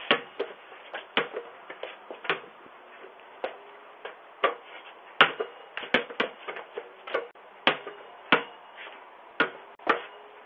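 About two dozen short knocks and clicks at irregular intervals, some sharper and louder than others, with no speech. The sound is thin and cut off in the highs, as picked up by a doorbell camera's microphone.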